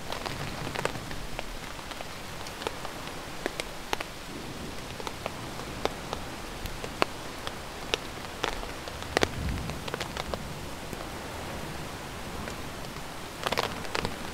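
Steady rain falling on the tent fabric overhead, with scattered sharp clicks through it and a few louder clicks near the end.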